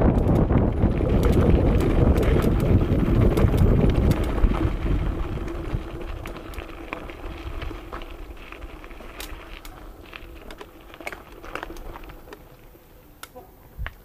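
Mountain bike rolling over a gravel forest track: tyres crunching and the bike rattling, with wind rumble on the chest-mounted camera's microphone. About five seconds in it slows, and the noise drops to scattered gravel clicks.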